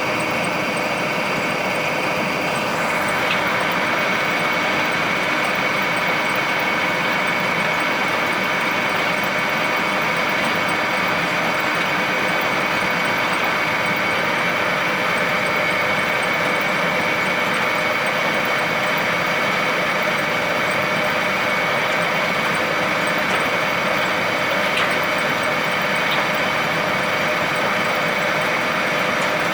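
Silage round baler-wrapper running steadily while baling alfalfa silage: constant mechanical running noise with a steady high whine over it and an occasional faint tick.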